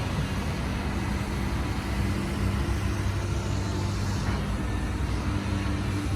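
Doosan DX225LC crawler excavator's diesel engine running steadily, with a constant low hum.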